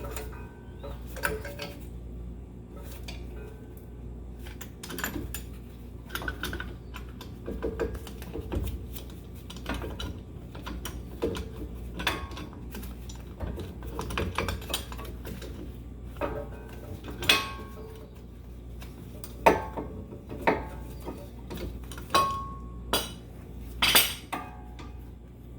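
Metal hand tools and brake parts clinking and clanking as they are handled during a front brake pad change, in irregular light clicks, with several sharper, louder clanks in the last third.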